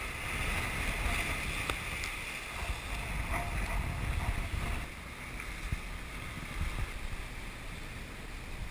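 Sailboat under way on the open ocean: a steady rush of wind and sea water, with wind rumbling on the microphone and a few faint knocks.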